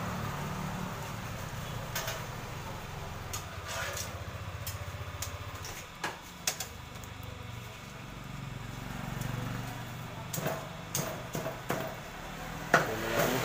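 Roadside stall ambience: a steady low hum like an idling engine, with scattered sharp clicks and knocks that come more often near the end.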